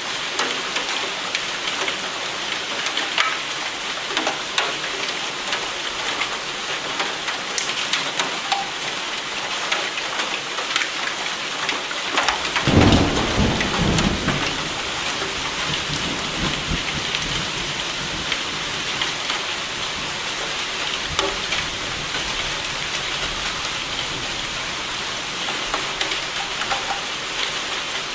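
Steady rain pattering down, with one roll of thunder about halfway through that rumbles low for a few seconds and fades away.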